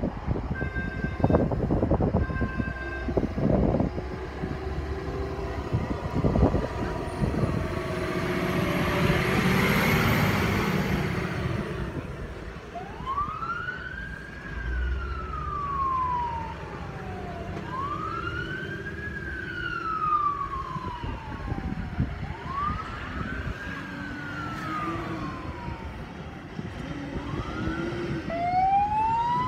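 Fire engines leaving on a call. First come a few short horn blasts and the noise of a truck passing close. Then a siren wails, each wail rising quickly and falling slowly over about four seconds, and a second siren joins near the end.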